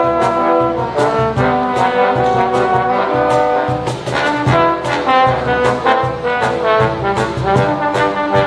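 Trombone quartet playing a brass arrangement in harmony, several parts moving note by note, over a steady cajón beat.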